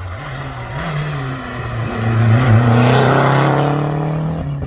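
Historic rally car accelerating hard up the road and passing close by, its engine note climbing and loudest about two and a half seconds in, then easing a little as it goes away.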